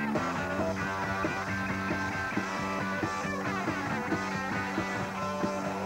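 Punk rock band playing live: distorted electric guitar, bass and drums driving through an instrumental stretch with no singing.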